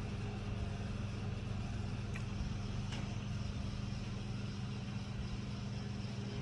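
A steady, low mechanical hum, like an idling engine or motor, with two faint clicks a few seconds in.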